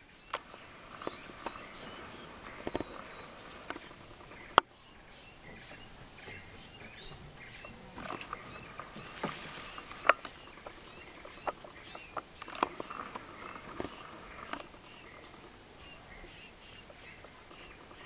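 Rainforest ambience: small high chirps repeating over a faint steady hum, with sharp knocks and thuds scattered through, the loudest about four and a half seconds in and again about ten seconds in.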